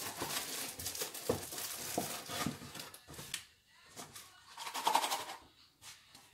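Kitchen handling noises: rustling and light knocks and scrapes as a sugar packet and a plastic container are handled while sugar is measured out.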